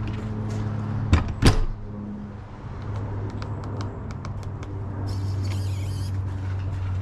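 An RV entry door swung shut, knocking twice as it closes and latches, then light clicks of keypad buttons on an RV Lock V4.0 keyed handle, and about a second of motor whirr from the lock's electric deadbolt driving home to lock. A steady low hum runs underneath.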